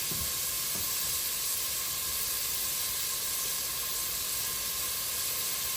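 Chopped onions sizzling in oil in a pan on the stove: a steady, even hiss, with a couple of faint knocks about a second in.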